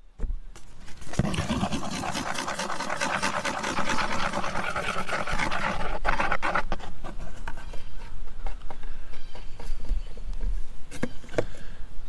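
Rapid, rhythmic scraping of a small mix being stirred, starting about a second in and running for about five seconds, then a few scattered clicks and taps.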